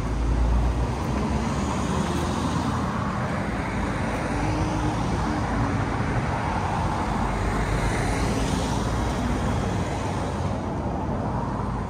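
Road traffic: a steady rumble of cars going by on the street, with one vehicle swelling past about eight seconds in.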